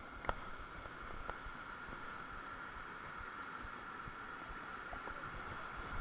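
Steady rush of a small waterfall cascading over rocks, with wind buffeting the microphone and a couple of sharp clicks in the first second.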